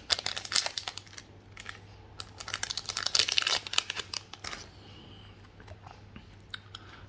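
Foil booster-pack wrapper crinkling and tearing as the pack is ripped open, in two flurries of sharp crackles, the second the longer, then quieter handling.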